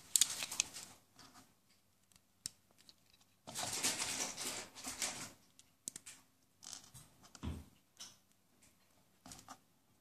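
Plastic Lego and Mega Bloks bricks handled and pressed together: scattered clicks and light scraping, with a longer rustling clatter from about three and a half to five seconds in.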